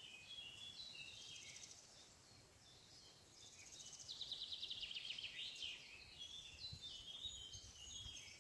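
Faint birdsong: several small birds chirping and trilling, with a fast trill about four seconds in.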